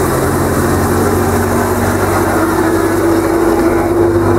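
Narrow-gauge diesel locomotive running steadily close by as it passes, its engine giving a low continuous hum with a held tone above it, followed by its carriages rolling past on the track.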